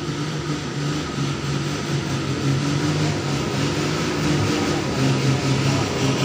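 Hino truck's diesel engine running steadily at a low, held pitch as the truck creeps closer, growing louder.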